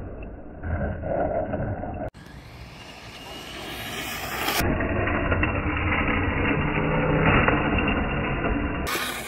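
Traxxas 4-Tec VXL radio-controlled car driving and drifting on asphalt, its electric motor and tyres heard in short clips that cut off abruptly about two seconds in and again partway through. The sound grows louder toward the later part.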